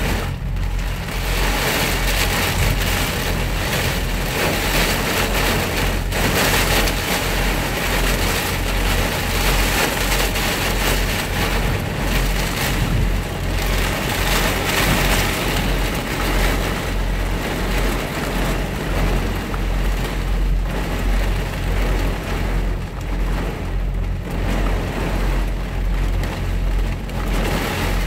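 Heavy thunderstorm rain beating on a truck cab, heard from inside, surging and easing in waves every few seconds, over a steady low hum.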